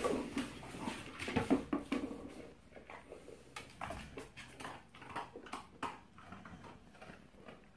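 A dog nosing at a red rubber toy on a tiled floor: irregular taps and knocks, busier and louder in the first two seconds, then sparser.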